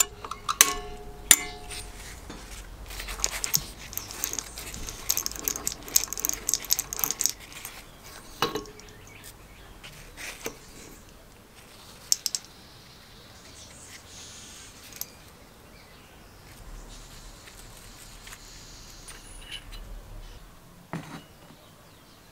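Hand tools on a small engine: a screwdriver prying, clicking and scraping against a steel shaft and its bearing, with small metal parts clinking and rattling and a few sharp knocks. A metal part rings briefly near the start, and there is a dull knock near the end.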